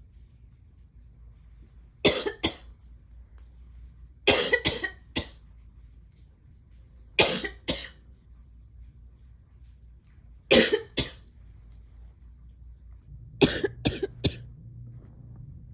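A person coughing in five short fits of two to four dry, sharp coughs each, a few seconds apart.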